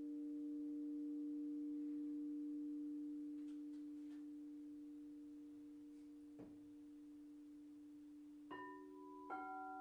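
Crystal singing bowls ringing. A low bowl tone sustains and slowly fades. After a soft tap, two bowls are struck about a second apart near the end, each setting off a new ringing tone.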